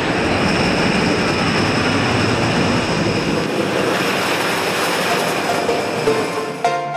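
Wooden roller coaster train running along its track: a steady, loud rumble with a faint high whine over it. Plucked background music comes in just before the end.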